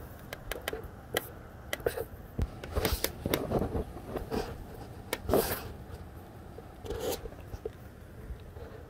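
A steady hiss of wind and rain, with irregular close rustling, scraping and clicking over it, loudest about halfway through.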